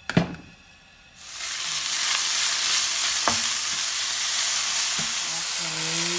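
Sliced pork hitting hot oil in a nonstick frying pan and sizzling loudly, the sizzle starting about a second in and then holding steady while it is stirred with a spatula, with a couple of light taps. A sharp knock comes at the very start.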